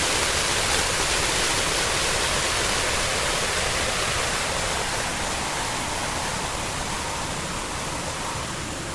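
Harsh noise drone music: a dense, steady wash of hiss-like noise filling every pitch, easing off slightly in its upper part through the second half, with a faint steady tone underneath.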